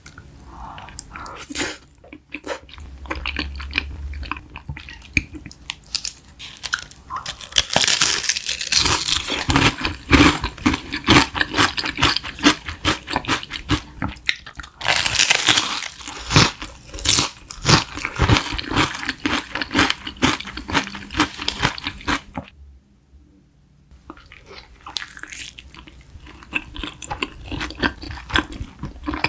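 A person biting and chewing crunchy food, a dense run of irregular crunches that stops for about a second and a half near two-thirds of the way through, then starts again more softly.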